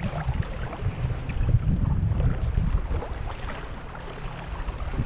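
Wind buffeting the microphone over water lapping and splashing around a sea kayak, easing a little in the second half.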